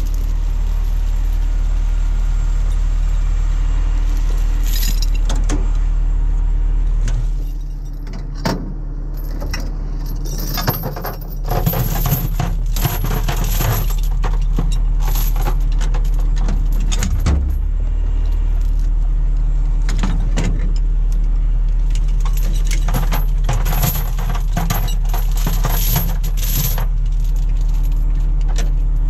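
Steel recovery chains clinking and rattling as they are handled and hung in a tow truck's chain compartment, many sharp metallic clinks, busiest in the second half. Under them the truck's engine idles steadily.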